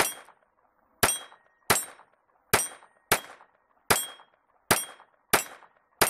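Ruger LC9 pistol with a Twisted Industries .22LR conversion firing a string of nine shots, about one every three-quarters of a second at an uneven pace. Each crack carries a brief ringing tone.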